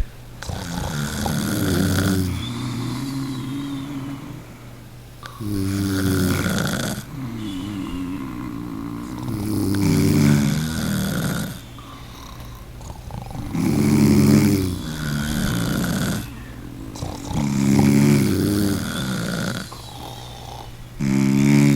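A person snoring in slow, regular breaths: roughly every four seconds a loud, rattling snore trails off into a softer breath.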